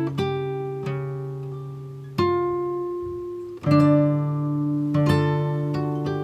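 Acoustic guitar music: notes and chords plucked about once a second and left to ring out, with a quicker run of notes near the end.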